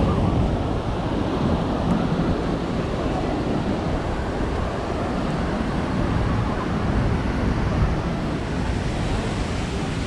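Steady sound of ocean surf washing on the beach, mixed with wind rumbling on the microphone.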